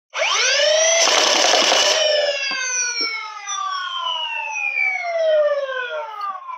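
Banshee flywheel motors of a full-auto Nerf Swordfish spinning up to a high whine, then a burst of full-auto dart fire lasting about a second. After the trigger is let go the flywheels wind down slowly, their whine falling in pitch over several seconds.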